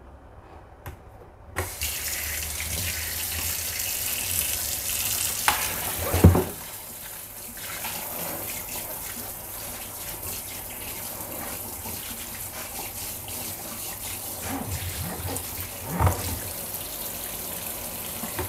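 Kitchen sink tap running, its water splashing steadily onto raw beef in a stainless steel sink; it starts about a second and a half in. Two dull thumps stand out, one about a third of the way through and one near the end.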